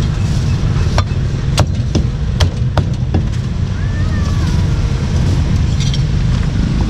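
Meat cleaver chopping a roast duck on a thick wooden chopping block: about five sharp knocks in the first three seconds, then scraping and scooping with few strikes. A steady low rumble lies under it all.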